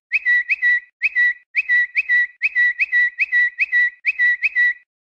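Rapid string of short electronic notification chirps, each a quick upward flick settling on a steady whistle-like tone, about three a second and often in pairs, signalling incoming tweets. The chirps stop shortly before the end.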